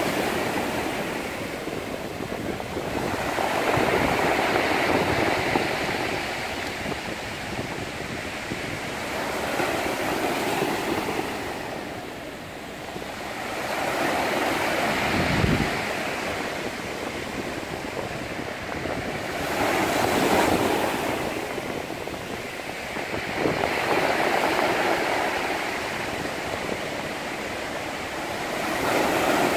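Sea waves breaking and washing onto the shore, the rush swelling and fading every few seconds.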